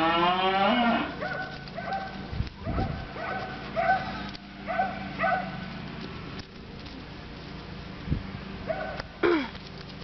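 Donkey braying: the end of a long call that glides up and then drops in the first second, followed by a run of short, high, repeated calls for several seconds and one more falling call near the end.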